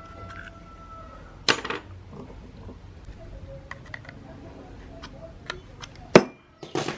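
Several sharp metallic clinks and knocks, such as small metal parts and tools being handled, the loudest about six seconds in.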